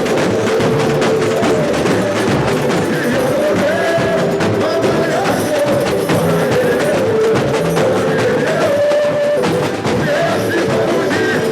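Samba school bateria playing a dense, driving samba rhythm on drums and percussion, with a wavering melody line carried over it.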